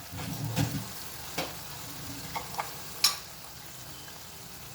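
Tomato masala sizzling in a pan on the stove while a spoon stirs it, with a few sharp clinks of the spoon against the pan; the loudest clink comes about three seconds in.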